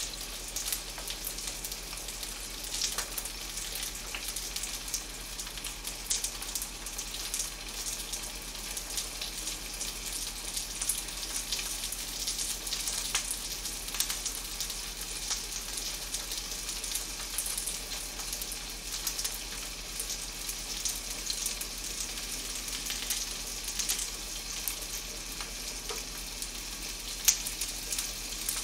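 Cooking oil sizzling steadily in a frying pan, with scattered small pops.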